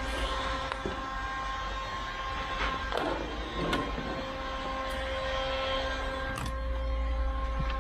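A steady machine hum that holds a constant pitch, with a short scraping rustle about three seconds in and a few faint clicks.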